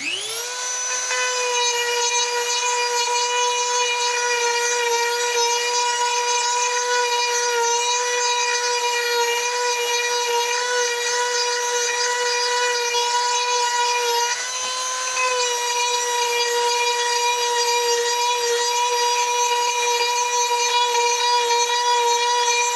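High-speed electric power tool spinning up and running with a steady high whine as it cuts into wood, its pitch wavering slightly as it bites. About fifteen seconds in the load eases briefly and the pitch lifts a little.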